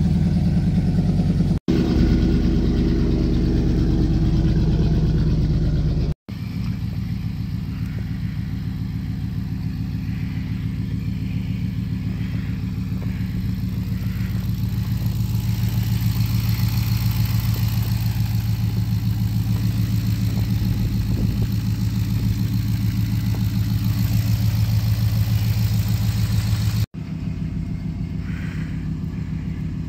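Dodge Ram pickup's 6.4-litre HEMI V8 idling with open headers, a loud, steady, unmuffled exhaust note. The engine is still cold at fast idle. The sound breaks off abruptly three times where clips are joined.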